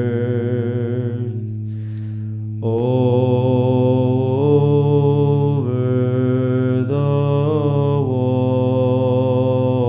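Byzantine chant: a male chanter sings a slow melody over a steady held ison drone. About a second in, the melody breaks off for a second and a half while the drone carries on alone, then it comes back stronger.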